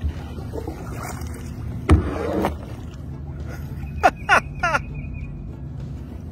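Kayak paddle strokes splashing in the water, with a man giving three short yells falling in pitch about four seconds in.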